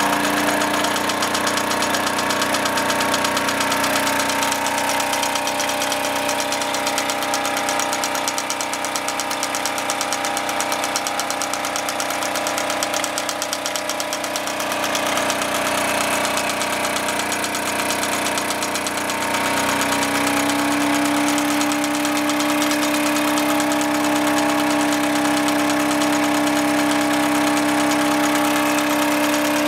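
Wilesco D20 toy steam engine running fast with a rapid, even beat and a steady whirring hum from the engine and the belt-driven model workshop machines it powers. The hum fades a little in the middle and comes back stronger about two-thirds of the way in.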